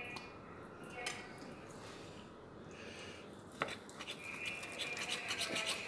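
A kitchen knife scraping along salmon skin in quick short strokes as the fillet is cut away from the skin, starting a little past halfway after a sharp click.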